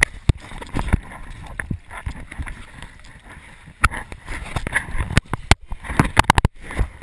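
Water lapping against a small boat's hull, broken by many irregular sharp knocks and clicks that come thickest about five to six and a half seconds in.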